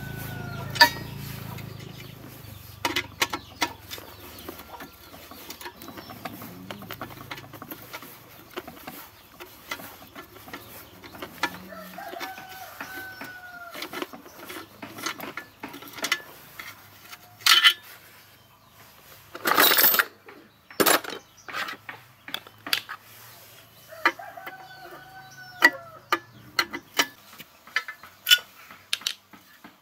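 Metal clicks and clinks of a ratchet socket wrench on a long extension working the bolts of a small petrol water-pump engine, with a short loud rasp about two-thirds of the way in. A rooster crows three times in the background, roughly twelve seconds apart.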